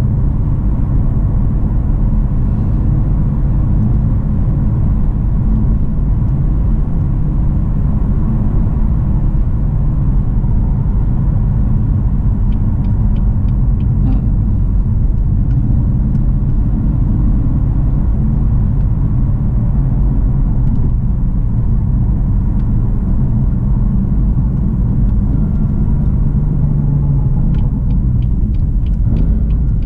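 BMW F80 M3's twin-turbo inline-six running under way at a steady cruise, a continuous low rumble whose pitch shifts a little near the end.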